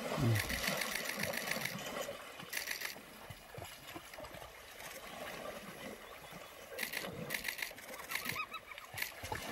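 African wild dogs giving high-pitched twittering calls in several quick bursts, one at the start and more near the end, over the slosh of water as a hippo surges and wades toward them.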